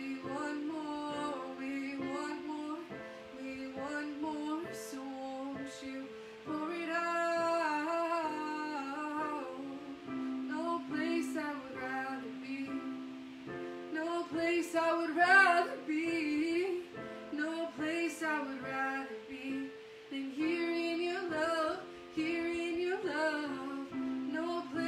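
A woman singing a worship song, accompanying herself on a digital keyboard with held chords.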